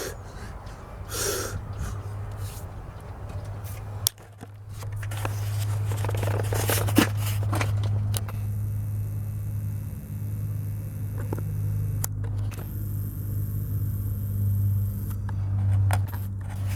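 An engine running steadily, with a few knocks and clicks over it.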